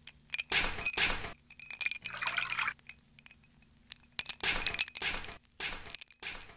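Glass and metal clinking and clattering in several separate bursts, over a faint low hum.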